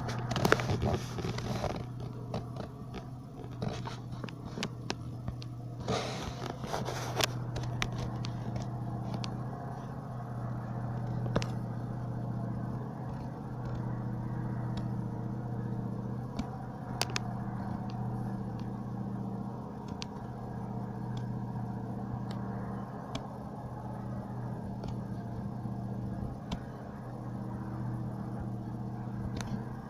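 A steady low droning hum with a few pitched layers, the middle one coming and going, from an unseen source. Scattered clicks, scrapes and crackles sound over it, busiest in the first couple of seconds and again around six to seven seconds in.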